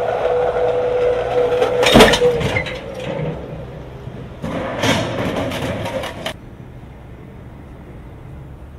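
Mobile crash barrier rolling in with a steady tone, then hitting the rear of a 2014 Ford EcoSport about two seconds in with a loud crunching crash of bumper and sheet metal: a low-speed rear impact test. A second, similar burst of crashing and cracking comes about five seconds in and cuts off suddenly.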